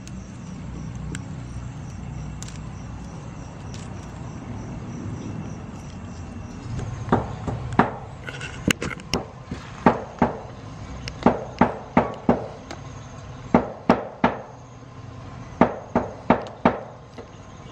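A run of sharp snaps, one or two a second, starting about seven seconds in over a steady low outdoor rumble: leaf stems being snapped off a garden plant by hand.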